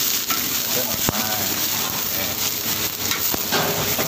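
Soaked rice noodles and scrambled egg sizzling in a hot wok over high heat, with a steady hiss. A metal spatula scrapes and knocks against the wok as they are tossed.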